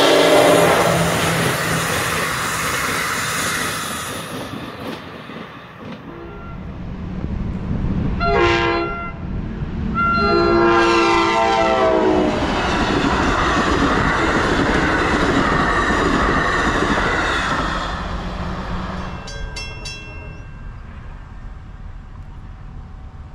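NJ Transit passenger train horns and passing trains: a horn chord ends just after the start as a train rolls past, then a short horn blast and a longer one sound as another train approaches. That train runs through with a steady rolling rumble, and a brief burst of rapid clicks comes near the end.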